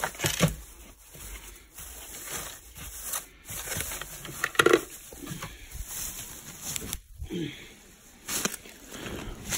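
Thin plastic ice-bucket liner bag crinkling and rustling as a hand works inside the bucket and lifts the bag out. The rustling is irregular, with many small sharp crackles.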